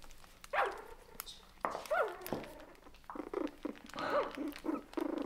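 Four-week-old toy poodle puppies yipping and squealing as they play. There are a couple of short sliding calls, then a quick string of little yaps toward the end.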